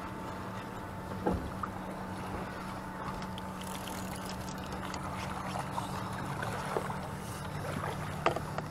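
A boat motor runs with a steady hum. There is a sharp thump about a second in, and short splashes and knocks near the end as a hooked catfish thrashes at the surface beside the boat.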